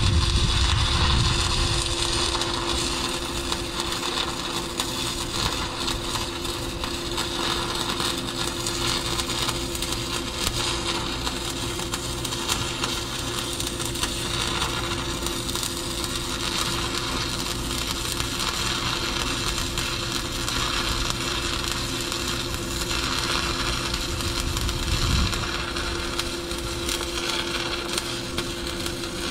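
Stick-welding arc crackling steadily on steel pipe, with a steady low hum beneath it and a low rumble that fades in the first couple of seconds.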